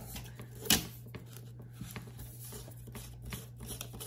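Carbon-fibre tripod leg and metal top fitting handled by hand: small clicks and rubbing, with one sharp knock about three-quarters of a second in, as a leg section is worked back into its socket.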